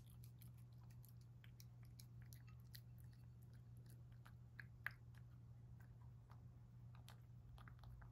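A cat chewing food from a bowl: faint, irregular little crunches and clicks, with a sharper click about five seconds in.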